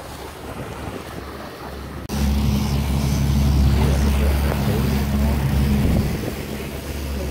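Wind and water rushing past the boat, then, after a sudden cut about two seconds in, the louder steady hum of a Suzuki 300 four-stroke V6 outboard motor running as the boat trolls.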